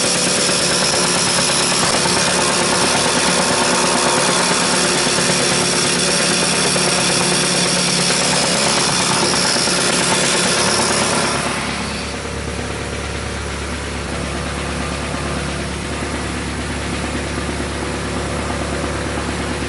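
A 600-line-per-minute graphics printer printing: a loud, steady mechanical rasp that stops suddenly about eleven and a half seconds in, leaving a quieter steady low hum.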